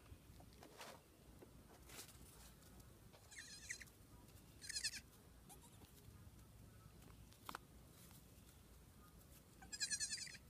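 Nigerian Dwarf goat kids bleating: three short, high-pitched bleats, about three seconds in, again a second later, and near the end.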